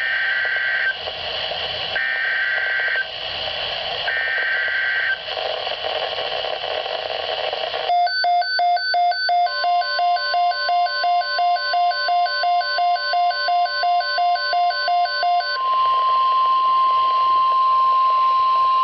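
NOAA Weather Radio alert activation over radio hiss: three one-second bursts of SAME data warble, about two seconds apart, mark the start of a severe thunderstorm watch alert. About eight seconds in, a rapid pulsing electronic beep starts, about three a second. Shortly after it the steady single-pitch 1050 Hz warning alarm tone comes in; the beeping stops about halfway through the alert and the tone holds on.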